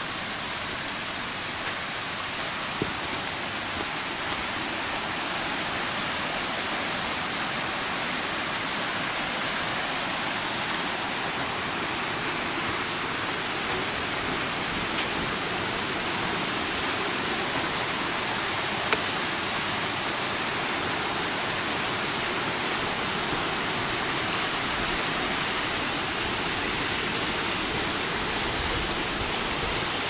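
Steady rush of a mountain stream running through a gorge, with a few faint knocks now and then.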